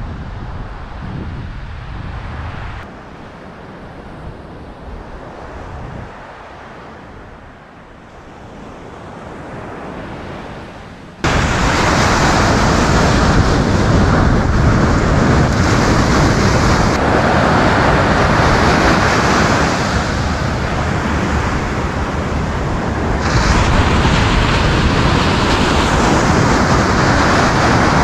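Wind on the microphone and breaking surf: a steady rush of noise that jumps abruptly to much louder about eleven seconds in.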